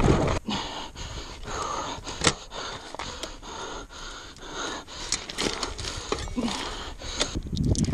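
A person panting hard and out of breath after hard exertion, with scattered sharp clicks.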